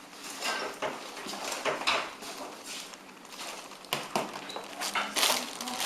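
Kitchen clatter: irregular knocks and clicks of dishes and utensils being handled, with brief rushes of noise near the end.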